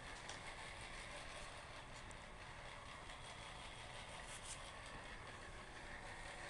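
Faint, steady whirring of the small battery-powered motors and gearing inside animated Halloween figures moving their arms, heads and bodies, with a few light clicks.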